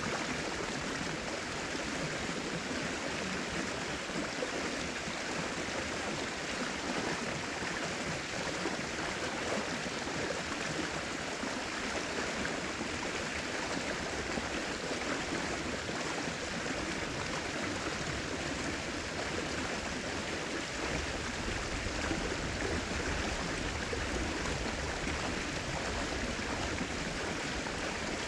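River water rushing and splashing in a steady wash of noise. A low rumble joins in about three-quarters of the way through.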